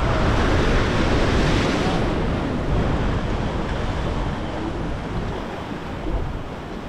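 Ocean surf washing and wind rushing across the microphone, loudest for the first two seconds and then easing off.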